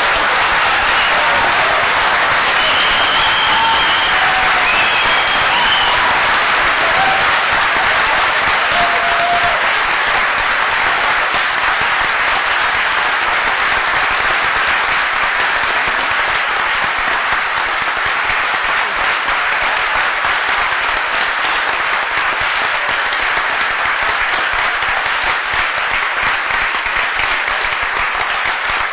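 Large audience applauding steadily, with a few whistles and shouts of cheering in the first several seconds; the clapping eases slightly toward the end.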